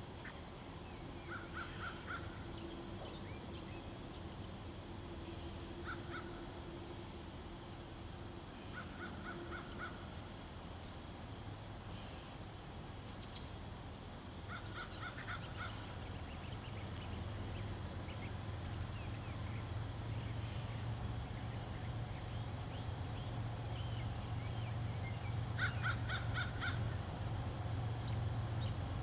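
Crows cawing in short runs of several harsh caws, five or so times. Under them a low rumble slowly grows louder through the second half as the approaching diesel freight train draws nearer.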